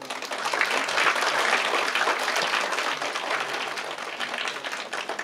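Group applause: many people clapping, starting suddenly, loudest in the first couple of seconds and thinning out toward the end.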